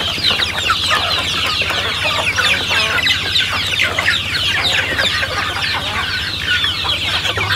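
A flock of chickens clucking and peeping continuously, many short high calls overlapping, as the birds crowd together feeding. A steady low hum runs underneath.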